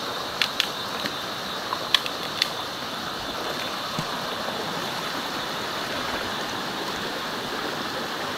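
Steady rush of flowing river water, with a few sharp clicks in the first two and a half seconds.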